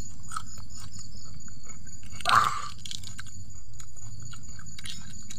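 Close-up chewing and crunching of food by people eating, with small wet mouth clicks throughout and one louder crunch a little over two seconds in.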